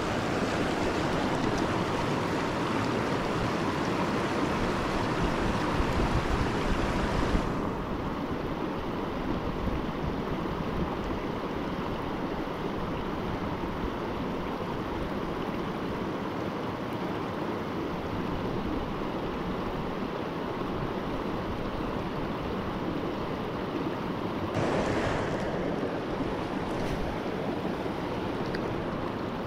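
River rapids rushing steadily, with wind rumbling on the microphone. The higher hiss of the water drops away about a quarter of the way through, and there is a brief rise near the end.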